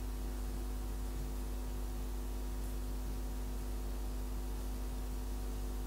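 Steady electrical hum, several low fixed tones, over a constant faint hiss, with no distinct handling sounds.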